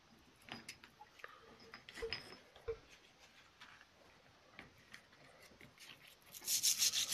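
Light clicks and knocks of small steel taps and dies being handled in a plastic tub of water. About six seconds in, a wire brush starts scrubbing them in quick, even rhythmic strokes.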